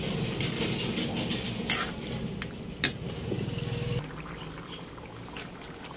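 Metal spatula stirring a thick pig's-blood stew in a wok: the liquid sloshes, and the spatula gives a few sharp scrapes and clicks against the pan. The stew is being stirred continuously so the blood does not curdle. A low steady hum underneath drops away about four seconds in.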